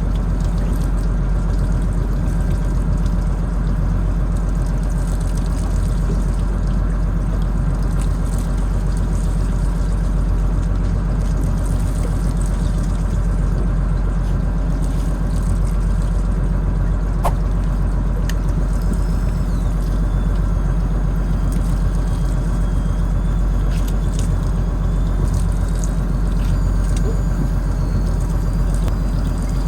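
Fishing boat's engine running at a steady, even drone.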